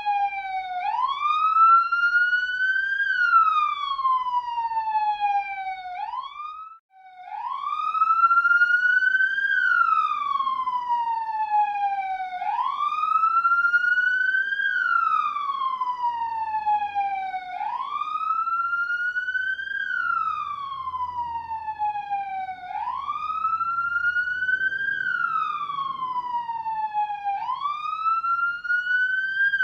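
Police car siren on a slow wail, the pitch rising for about two seconds and falling for about three, over and over. About six seconds in, one rise breaks off and the siren briefly cuts out before the wail starts again.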